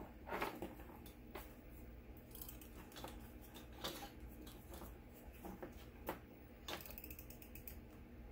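Faint scratchy strokes and light clicks of a white-out correction tape runner being run over planner paper, with a longer scratchy pass about seven seconds in.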